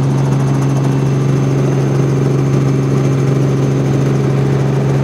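Helicopter engine and rotor noise heard from inside the cabin in flight: a steady, even drone with a strong low hum.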